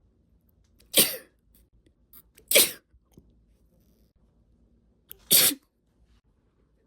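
A woman sneezing three times, induced sneezes: one about a second in, another a second and a half later, and a third near the end after a longer pause.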